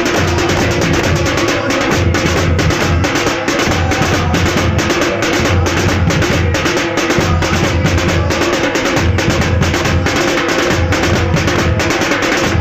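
Many daf frame drums beaten together in a fast, even rhythm, about four strokes a second, with a low thudding beat pulsing beneath.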